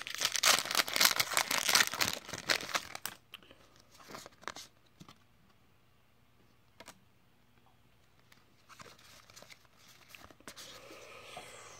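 Foil Pokémon booster pack wrapper being torn open and crinkled for about three seconds. Then scattered light ticks and rustles, with a softer stretch of rustling near the end as the trading cards are handled and fanned out.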